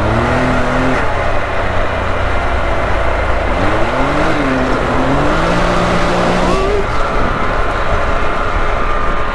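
Can-Am Maverick X3 side-by-side's turbocharged three-cylinder engine running under way, its revs rising and falling a few times over rough road noise. It then holds a steady higher pitch with a whine over it for the last couple of seconds.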